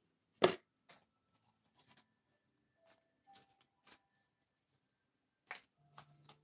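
Tarot cards handled and shuffled by hand: faint rustling and light taps of the cards, with one sharp knock about half a second in.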